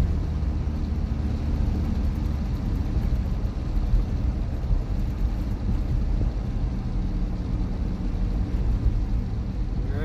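Inside the cab of a pickup with a 12-valve Cummins diesel cruising at highway speed: steady engine drone and road noise, with the torque converter lockup just released.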